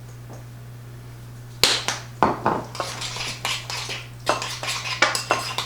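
A utensil clinking and scraping against a small baking dish as mashed potatoes are stirred, a quick irregular run of knocks and scrapes that starts about a second and a half in.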